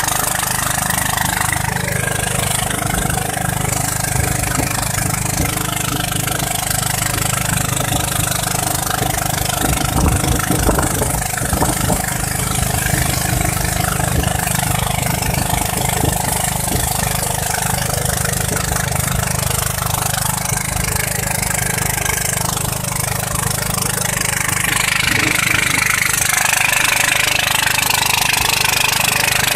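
Motorboat engine running steadily, with the rush of water along the hull; the hiss grows louder near the end.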